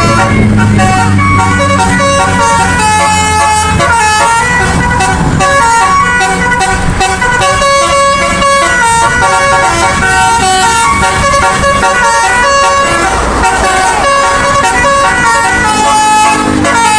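A bus's 'telolet basuri' musical air horn playing a quick tune of held notes, over the low running of the bus's engine, which is loudest at the start and again near the end.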